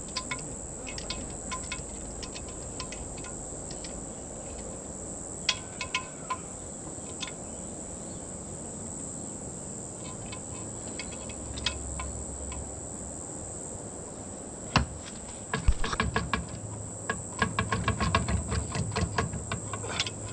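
Steady high-pitched insect trilling, like crickets. Over it come scattered sharp clicks and knocks of metal parts being handled as the outboard's lower unit is worked into place. About two thirds of the way in these grow into a busy clatter of rattling and knocking that lasts to the end.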